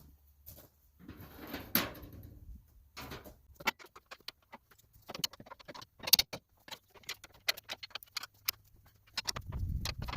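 Metal baler parts being handled and fitted by hand: irregular clicks, knocks and a short scrape, with two louder knocks about two and six seconds in.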